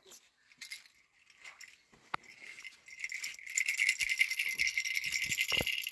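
Small hard objects rattling as something is shaken: a single click about two seconds in, then steady rattling from about three seconds in.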